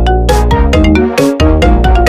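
Electronic background music with heavy bass, a steady beat and short synth notes.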